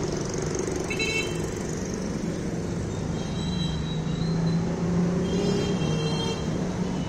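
Steady background street-traffic rumble with a low hum, broken by a few short high-pitched tones about a second in and twice more in the second half.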